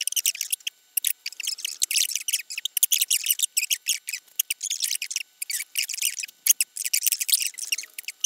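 Fast-forwarded soundtrack: rapid, high-pitched squeaky chatter, like voices sped up many times over.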